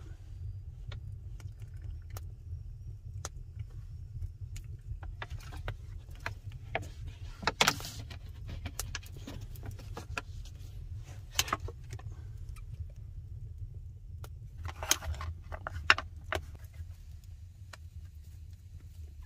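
Wood fire crackling in a stone fireplace: irregular snaps and pops, with louder clusters about a third of the way in, past the middle and near three-quarters, over a steady low rumble.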